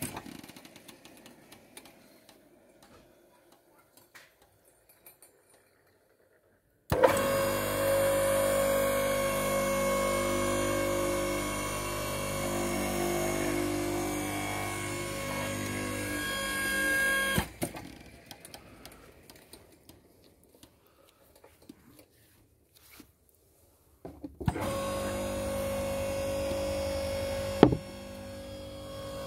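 Electric motor of a homemade sawdust briquette press running in two spells, each starting abruptly, while the press compacts sawdust and pushes a briquette out of the tube. The first spell lasts about ten seconds and is followed by a pause of about seven seconds. In the second spell a sharp knock comes near the end and the motor goes quieter.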